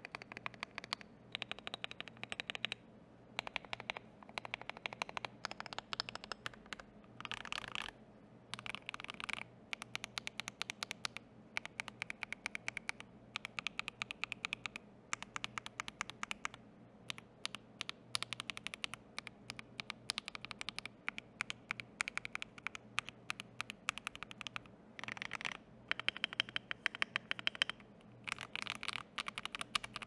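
Typing on a mechanical keyboard with Akko CS Silver linear switches lubed with Krytox 205G, in a Tofu65 V3 with a brass plate and double-shot PBT ASA-profile keycaps. Fast runs of keystrokes with brief pauses between them.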